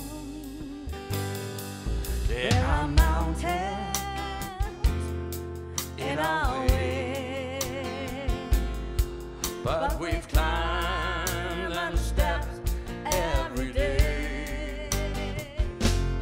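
A live band playing a slow soft-rock ballad: sung phrases with vibrato over acoustic guitar, drum kit and double bass.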